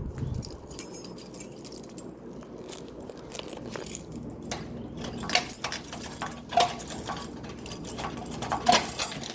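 Irregular light clinks, clicks and rattles of small hard objects being handled, coming more thickly in the second half.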